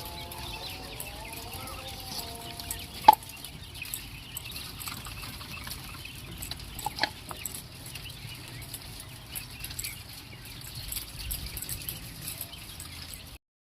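Laying quail calling and clucking, with a sharp loud call about three seconds in and a few short calls around seven seconds, over scattered faint ticks.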